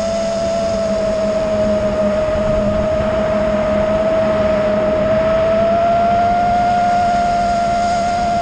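Brushless motors and propellers of an iFlight Nazgul Evoque F5 five-inch FPV quadcopter whining at a steady pitch in forward flight, over wind rush. The pitch sags slightly, then rises a little about halfway through as the throttle changes.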